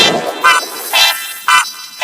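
Music made of short pitched notes alternating between a higher and a lower pitch, about two notes a second.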